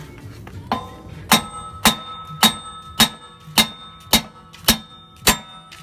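A hammer striking metal on the hub of a Nissan 350Z to knock out a broken wheel stud. A lighter tap comes first, then eight hard strikes about every half second, each ringing briefly.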